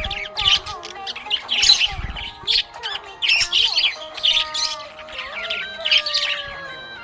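Budgerigars chirping and squawking in a rapid, busy chatter, with some louder squawks mixed in.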